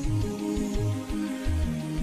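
Background music: electronic-style instrumental with a pulsing bass line and a steady beat.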